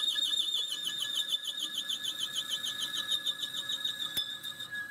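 Lathe cutting a metal pipe: a steady, high whine that wavers rapidly, with a single click about four seconds in, after which the whine fades.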